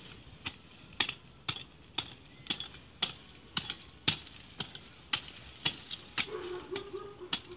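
Small hand hoe chopping into hard, unploughed garden soil, a steady rhythm of sharp strikes about two a second.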